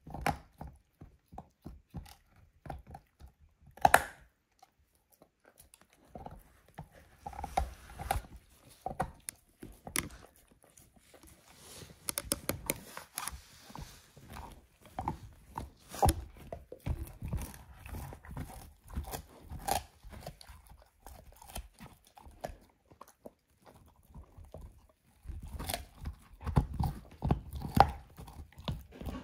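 A dog gnawing a lamb bone: irregular chewing with crunches and cracks of teeth on bone, one loud crack about four seconds in, and a short lull near the end before a last dense run of chewing.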